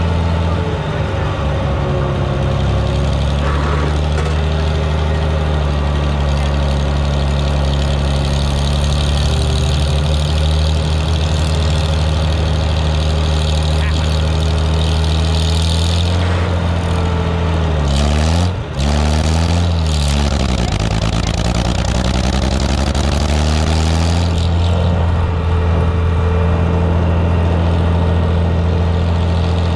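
Vintage farm tractor engine running steadily under way, heard close to its upright exhaust stack. A little past halfway the engine note dips and climbs back up, then holds steady again.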